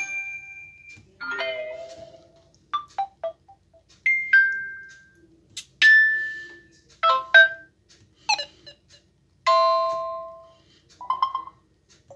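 Samsung Galaxy A12 message notification tones played one after another: a string of short, different electronic chimes and blips, each ringing out briefly with a short gap before the next.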